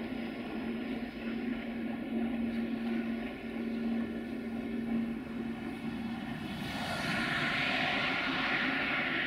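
A steady motor hum with a high whine of many stacked tones, growing louder and brighter about seven seconds in.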